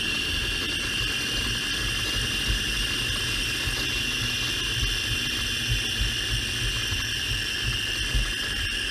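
Mercedes E500 4MATIC's front transfer case heard through a ChassisEAR contact microphone while driving: a steady loud mechanical noise with a high whine over a low rumble. The owner finds that it does not match the deceleration whine heard in the cabin, which rules the transfer case out as that whine's source.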